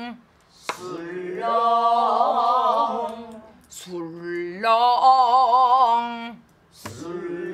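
A woman singing two drawn-out phrases of a Korean Namdo folk song in pansori-style voice, each long note held with a wide, wavering vibrato, a short pause between them. A sharp tap sounds just before each phrase.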